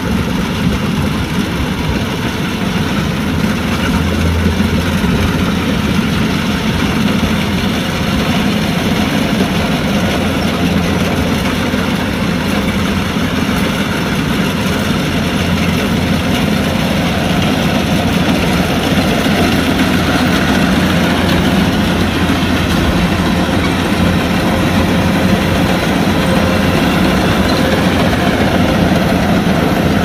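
Kubota combine harvester's diesel engine running steadily.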